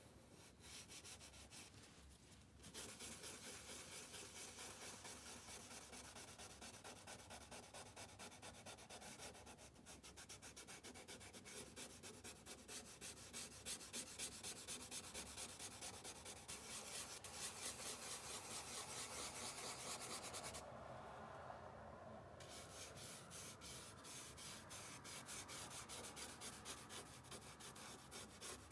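A bristle paintbrush scrubbing charcoal onto paper in rapid back-and-forth strokes, a fast, dry, scratchy rubbing. It is faint for the first two seconds or so and then goes on steadily, easing for a moment about three-quarters of the way through.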